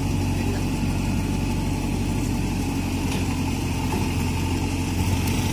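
JCB backhoe loader's diesel engine running steadily at low revs, an even low hum with no change in pitch.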